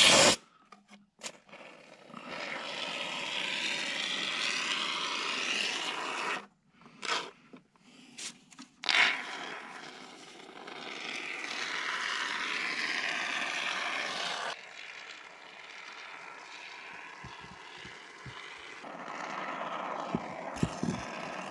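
Spray foam gun on a can of expanding foam hissing as it dispenses foam into gaps in the wall framing. It runs in two long stretches of about four and five seconds, with short spurts between, followed by softer hiss and a few light knocks near the end.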